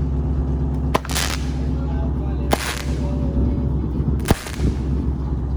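Three sharp firecracker-like cracks, about a second and a half apart, some with a brief hiss after, over a steady low rumble.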